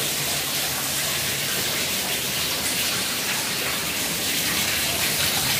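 Steady rushing hiss, even and unbroken, strongest in the high range, with no distinct knocks or clicks.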